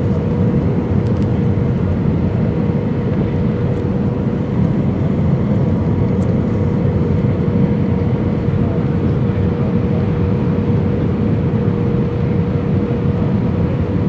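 Airbus A320 passenger-cabin noise on approach: the steady roar of airflow and engines, with a constant hum running through it.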